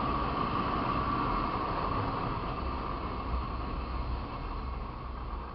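Honda CB300 motorcycle riding at speed, with engine noise and wind rush on the rider's microphone, easing off slightly near the end.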